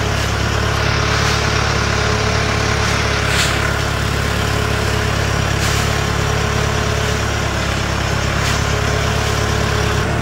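Tractor diesel engine running steadily at a slow pace while pulling a loaded trailer, with a few light knocks from the trailer.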